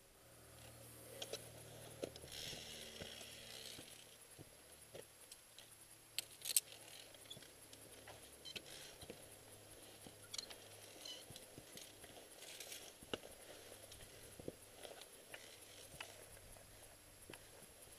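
Faint scattered clicks and scrapes of a climber moving over rock, gloved hands and boots on the stone, with a couple of short rustles. The sharpest click comes about six seconds in.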